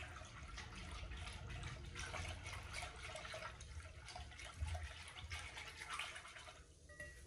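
Silicone-coated whisk beating a wet flour batter in a glass bowl: quick, continuous wet slapping strokes that ease off near the end.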